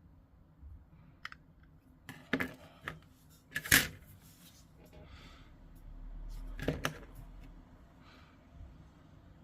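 Clicks and knocks of plastic model-kit pieces and hobby tools being handled and set down on a desk during tidying up. The loudest knock comes about four seconds in, with a pair of sharper clicks near seven seconds.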